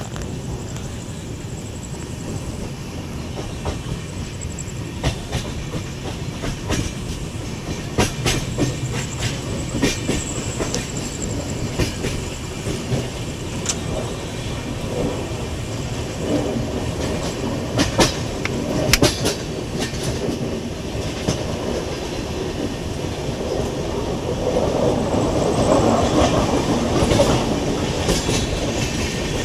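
Passenger express train running along the track: a steady rumble with irregular clacks of the wheels over rail joints.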